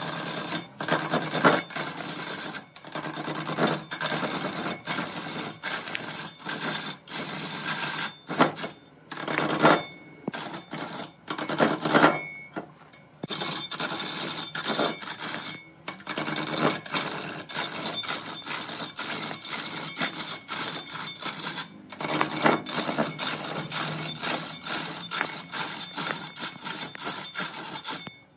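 Wood being cut on a lathe: a turning tool scraping against spinning wood, a rough steady hiss broken by many short pauses as the cut stops and starts.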